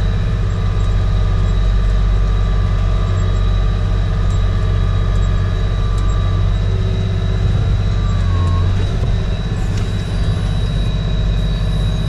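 Tractor engine running, heard from inside the cab while towing a grain wagon: a steady low drone with a thin high whine over it. About nine seconds in, the engine note drops as the tractor slows.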